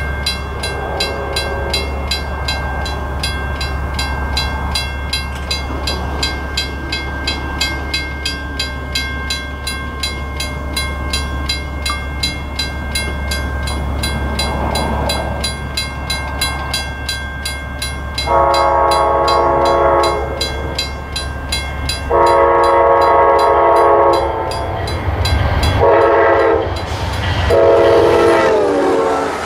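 Amtrak GE P42DC diesel locomotive approaching and sounding its multi-chime air horn in the long-long-short-long pattern, the standard grade-crossing warning. The pitch of the last long blast drops as the locomotive reaches and passes.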